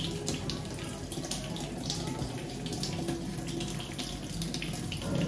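Kitchen tap running into a sink, the stream splashing unevenly as potatoes are washed under it.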